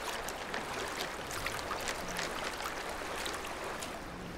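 Rushing river water with splashing as bison wade through the current, a steady hiss broken by many short splashes.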